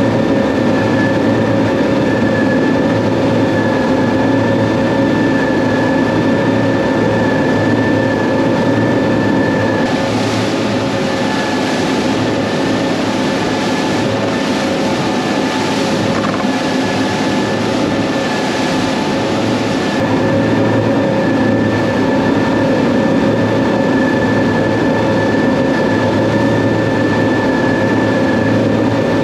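Twin Mercury Verado 250 hp V8 outboard engines running steadily at speed, with wind and water rushing past the hull. The rush of wind and spray is louder through the middle third.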